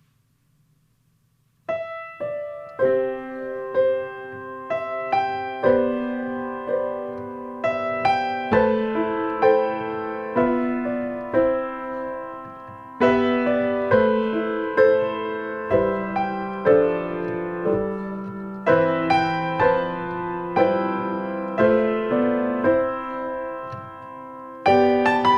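Piano playing a slow passage of struck chords that ring and fade, starting about two seconds in after silence.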